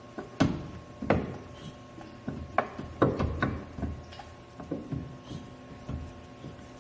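Irregular knocks and clunks from a BMW X1's front differential carrier assembly as it is shifted and wiggled by hand, trying to drop it down past the raised engine. The loudest knocks come in the first three and a half seconds, with lighter taps after.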